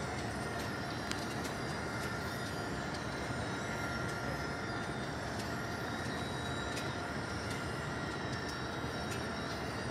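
Drive motors of giant motorised retractable canopy umbrellas running as the canopies slowly unfold: a steady mechanical hum with faint high whines over it and a few faint clicks.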